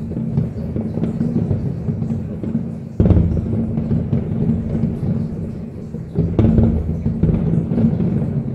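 Aerial fireworks shells bursting in rapid volleys, a continuous rolling rumble of booms with sharp cracks on top. Fresh, louder barrages break in about three seconds in and again about six seconds in.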